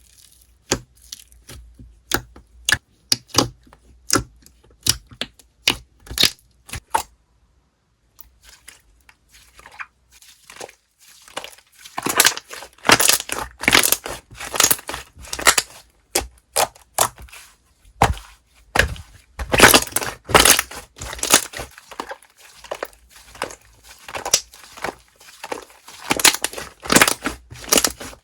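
Slime being squished and pressed by hand, giving sharp crackling pops and clicks. The pops come one at a time at first, then grow denser and louder from about twelve seconds in.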